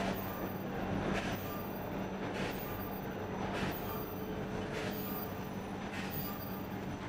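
Non-woven bag making machine running with a steady low hum, marked by a short, regular stroke about every 1.2 seconds as it cycles.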